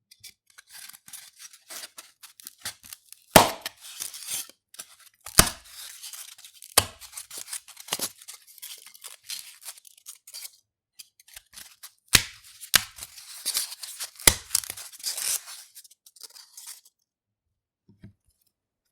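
Polystyrene foam being rubbed and snapped: squeaky, crackly rubbing broken by several sharp cracks as pieces break off, stopping a couple of seconds before the end.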